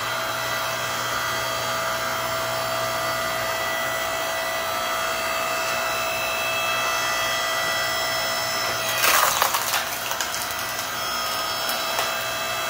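Electric 6.5-ton log splitter running, its motor and hydraulic pump giving a steady hum and whine as the ram drives a hardwood log into the wedge. About nine seconds in, the log splits with a short crackle of splintering wood, the loudest moment.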